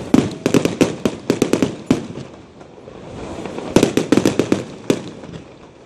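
Fireworks display: rapid volleys of sharp bangs, one cluster in the first two seconds and another about four seconds in, with a lull between.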